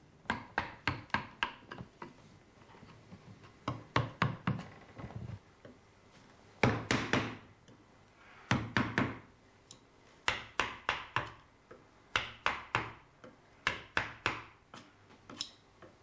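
A genno hammer striking a wooden-handled striking chisel (tataki-nomi) driven into a wooden block, in quick runs of sharp knocks, about three a second, with short pauses between: the rough-carving stage of a relief.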